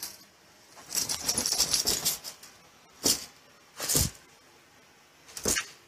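A dog making short noisy sounds: a quick run of bursts lasting about a second, then three single sharp ones, each a second or more apart.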